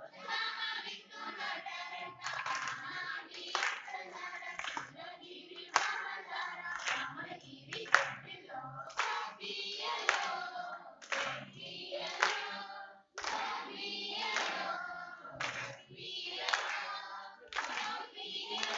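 A group of women singing together while clapping in time, with claps at roughly one per second.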